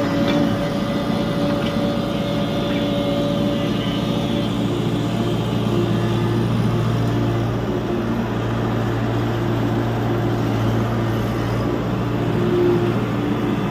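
Tata Hitachi EX70 Super Plus excavator's diesel engine running steadily under work, with a higher whine that breaks off and returns several times.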